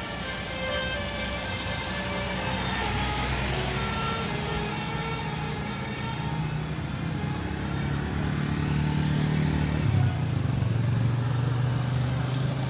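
A bus's Basuri telolet horn sounds its multi-note tune in the first few seconds. Then the bus engine runs on, its low rumble growing louder about two-thirds of the way in.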